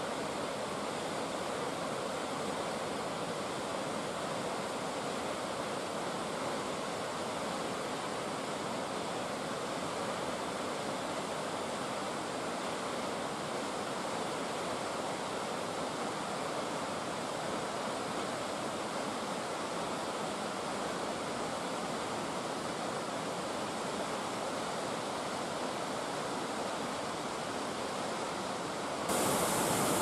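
Mountain waterfall rushing steadily, a constant wash of falling water. About a second before the end the sound steps up, louder and brighter.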